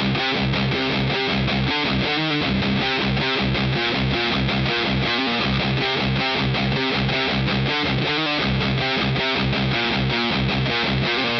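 Electric guitar with a Seymour Duncan Distortion Mayhem bridge pickup, run through a Seymour Duncan Blackouts active preamp, playing fast picked riffs.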